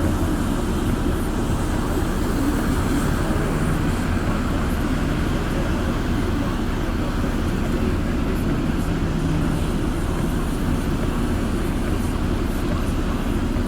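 Semi-truck's diesel engine idling with a steady low rumble.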